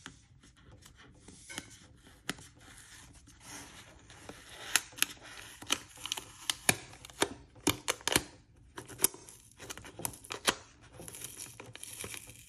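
Adhesive tape seal being picked at and peeled off a cardboard box: irregular crackles and sharp ticks of tape and fingers on cardboard, coming most thickly in the middle, with stretches of soft rustling between.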